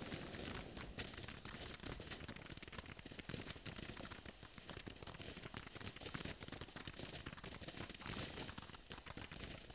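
Crystal Geyser firework fountain spraying sparks with a continuous hiss and dense, irregular crackling pops from small stars bursting above it.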